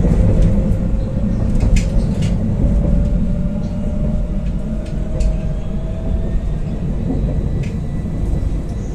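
Interior of an Alstom Citadis 302 tram under way: a steady low rumble of wheels on rail, with a motor whine that climbs slowly in pitch over the first six seconds or so as the tram picks up speed. A few sharp clicks and rattles sound over it.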